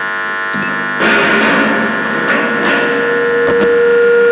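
Homemade amplified spring instrument, its steel springs and rods picked up and run through an amplifier, giving a loud, distorted droning noise. A steady hum of many stacked tones is joined about a second in by a louder, gritty layer of noise with a held tone over it.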